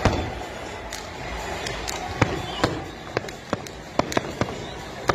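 Aerial fireworks bursting in a run of sharp, irregular bangs, about a dozen in five seconds, over a steady background rumble.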